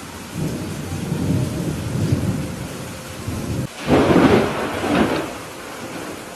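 Thunderstorm: steady rain under a rolling rumble of thunder, then a sharp, louder thunderclap about four seconds in, with a second peak a second later before it dies away.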